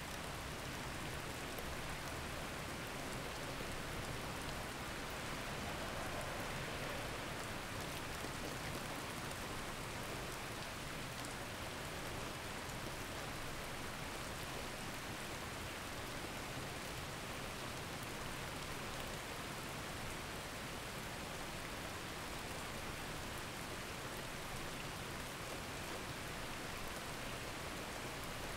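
Steady rain noise, an even hiss with a fine patter of drops and no change in level, used as the masking sound of a subliminal track.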